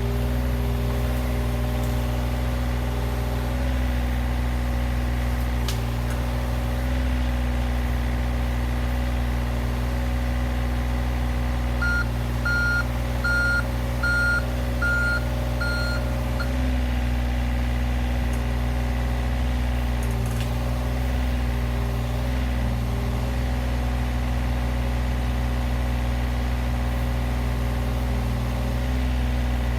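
John Deere 35G compact excavator's diesel engine running steadily under load. About halfway through, its travel alarm beeps about six times over four seconds as the machine is driven on its one remaining track.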